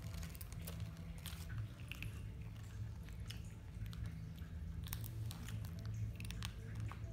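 A baby macaque chewing crisp banana chips: irregular small crunches and clicks over a low steady hum.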